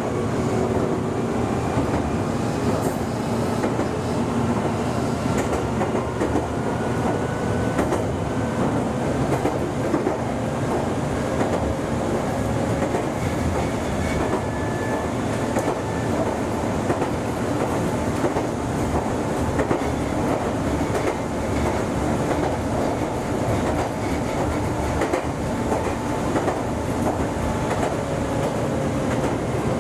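Meitetsu electric commuter train running along the line, heard from inside the front car: a steady rumble of wheels on rail with scattered rail-joint clicks and faint whines that slowly rise in pitch.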